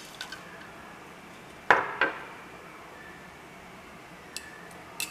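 Sharp metallic clicks and clinks of a small screwdriver, tiny screws and a thin sheet-metal panel being handled as a circuit board is taken off the panel: two louder clinks a little under two seconds in, and lighter ticks near the end.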